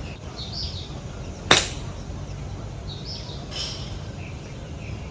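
A golf club strikes a ball once, a single sharp crack about a second and a half in. Birds chirp faintly before and after it.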